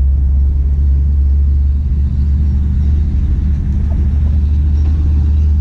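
A loud, steady low rumble that starts and stops abruptly, with little else above it.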